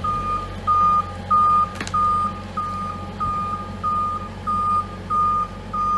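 Reversing alarm on a Manitou telehandler beeping at a steady single pitch, about one and a half beeps a second, over the low running of its diesel engine as it backs away with a load.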